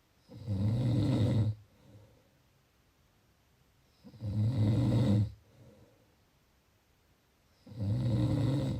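A person snoring: three loud, low snores about every three and a half to four seconds, each lasting over a second, with a faint softer breath sound after each.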